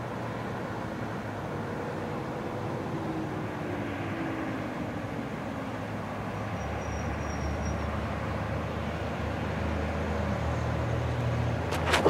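Distant outdoor warning sirens slowly winding down, faint falling tones under a steady low rumble of city traffic. A few sharp knocks right at the end as the recorder is handled.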